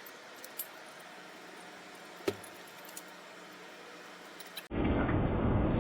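A few light clicks and one sharper knock over a faint background hiss. Near the end the sound cuts abruptly to a much louder steady noise.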